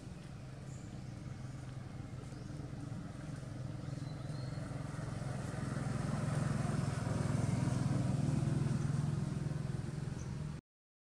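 A motor vehicle engine running steadily as it passes, its low hum growing louder over several seconds and easing a little after the peak; the sound cuts out suddenly near the end.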